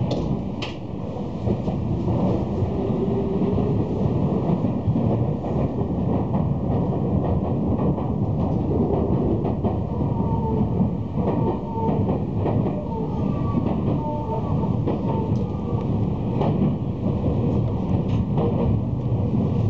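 Tokyu Toyoko Line electric commuter train running on rails, heard from inside a car: a steady rumble with wheels clacking over rail joints. A few brief high squeals come in around the middle.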